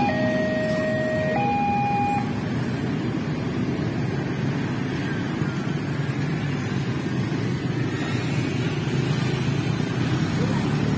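Railway level-crossing warning alarm sounding a two-tone alternating chime from the loudspeaker on the crossing signal, cutting off about two seconds in as the crossing clears. After that, motorcycle and car engines run as a stream of traffic moves over the crossing.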